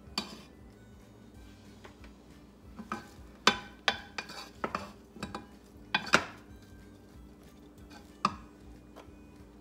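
A wooden spoon stirring peas, carrots and butter in a saucepan, knocking against the pan in a string of irregular clacks. The clacks come thickest in the middle, with a last one near the end.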